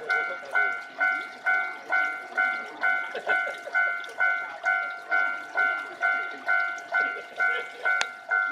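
Japanese railway level-crossing warning bell ringing in a steady rhythm, about two and a half clangs a second, each clang ringing out before the next.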